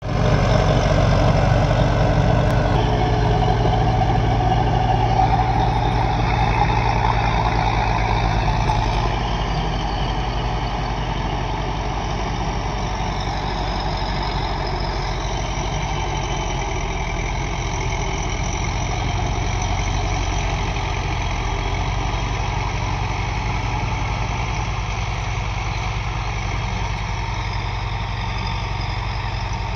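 Diesel tractor engine running steadily under load while pulling a rotavator (rotary tiller) through dry soil. It is loudest for the first nine seconds or so, then a little quieter and even.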